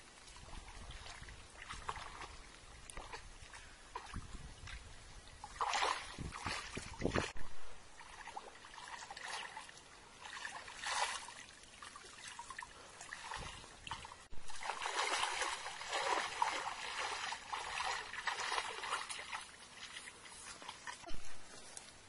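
Water splashing and trickling as a mosquito net is dragged through a shallow, muddy pond by people wading in it. Scattered splashes come first, then a denser, continuous stretch of splashing and dripping from about two-thirds of the way in.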